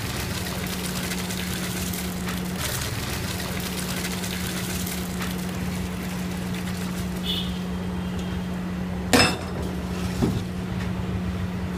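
Steel vessels handled against a large aluminium pot of boiling water while soaked rice is tipped in, over a steady hiss and hum. About nine seconds in a steel vessel strikes the pot with one loud metallic clang, followed a second later by a lighter clink.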